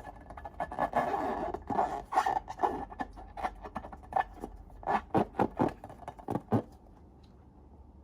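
Slime being squeezed and worked by hand: a run of sticky clicks, pops and rubbing squelches that stops about two-thirds of the way in.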